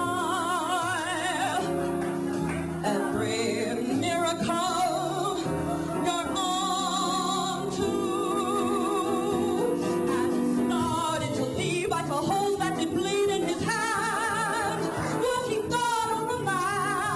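A woman singing long held notes with a wide vibrato over a sustained instrumental accompaniment, in a big show-tune style.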